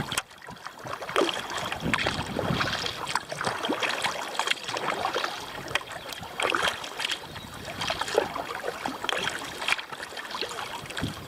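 Kayak paddling: paddle blades dipping and splashing in the water, with irregular splashes and drips.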